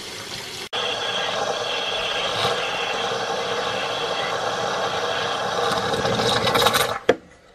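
A steady mechanical running noise with a hum, starting suddenly just under a second in and cutting off near the end.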